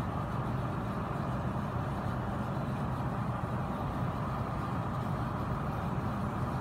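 Steady low rumble of a car engine idling, heard from inside the cabin.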